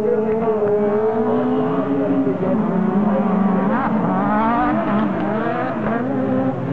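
Several 1600 cc autocross buggy engines revving hard together as the pack races past, their overlapping notes rising and falling through gear changes, with one sharp climb in pitch about four seconds in.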